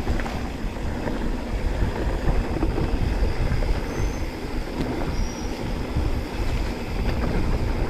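Mountain bike rolling down a rough dirt trail: a steady rumble of tyres and wind on the ride camera's microphone, with the bike clattering over bumps and two brief high squeaks about four and five seconds in.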